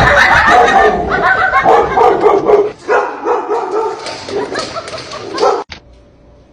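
An animal's high-pitched cries, many overlapping and wavering in pitch, cutting off suddenly about five and a half seconds in.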